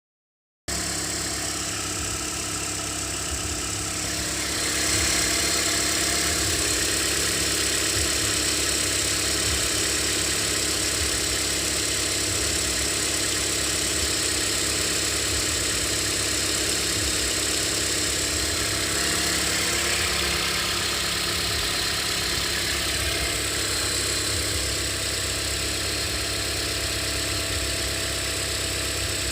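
2013 Toyota Corolla engine idling with a steady high-pitched whistle from under the hood on the left side of the engine. It is the kind of whistle that is much stronger just after a cold start and fades as the engine runs. The sound gets a little louder about five seconds in.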